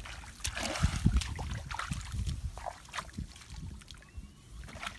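Bare feet squelching and splashing through wet mud and shallow water, a run of uneven steps that is busiest about a second in.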